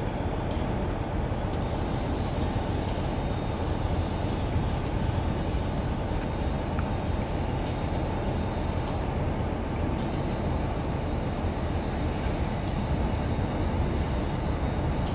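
Train at a railway platform: a steady low rumble with a faint high whine over it.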